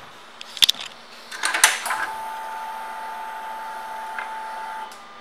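Clicks as the ignition of a Kawasaki Vulcan 1700 Vaquero is switched on, then a steady electric whine for about three seconds that cuts off sharply. This is typical of the fuel pump priming before the engine is started.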